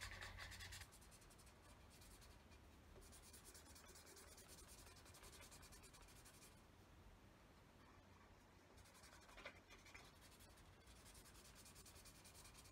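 Faint scratching of a felt-tip pen on paper, colouring in with rapid strokes, with one brief soft tap about nine and a half seconds in.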